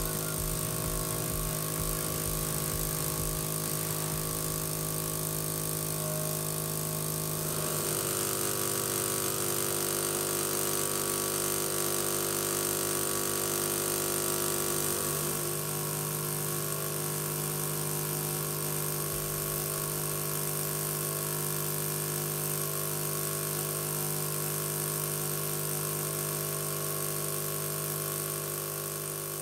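Miniature brass oscillating-cylinder steam engine running fast, a steady mechanical whir. The tone shifts abruptly about a quarter of the way in and again about halfway.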